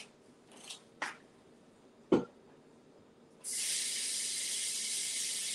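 Two sharp knocks, the second louder, then a kitchen tap is turned on about halfway through and water runs steadily into the sink with an even hiss.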